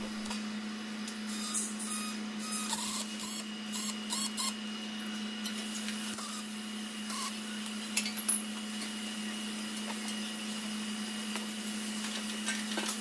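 Workshop room tone: a steady low hum with a few faint clicks and light taps, two slightly louder ones about eight seconds in.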